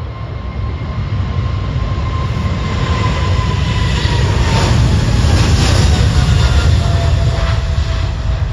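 Jet engines of a twin-engine widebody freighter at takeoff power during its roll and liftoff: a heavy roar that grows louder toward the middle and eases near the end, with a whine that slides slowly down in pitch.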